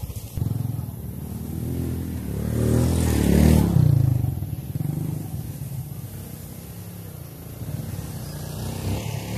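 Small motorcycle engines revving on a sandy dirt trail, the engine note rising and falling with the throttle. It swells about three seconds in and builds again near the end as a bike comes up close.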